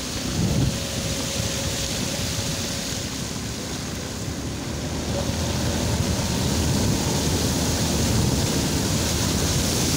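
Motorbike riding through shallow floodwater: the engine running under a steady rush of water thrown up by the tyres, growing a little louder about halfway through.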